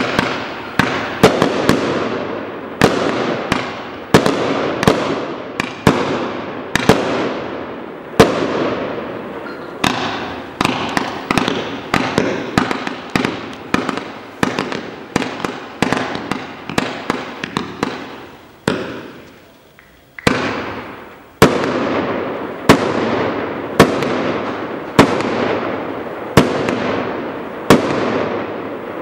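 A 98-shot, 20 mm calibre consumer firework cake (barrage) firing: it starts abruptly with a rapid series of sharp shots, about one to two a second. The sound of the bursts carries on between the shots, and the firing dies away briefly about two-thirds of the way through, then starts again.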